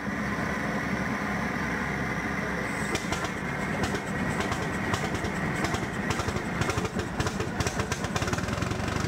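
Old Munktells tractor's hot-bulb engine running with a fast, steady beat of firing knocks.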